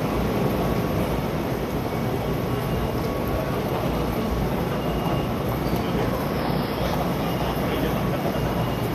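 Steady crowd noise of many commuters walking and murmuring through a busy train station concourse.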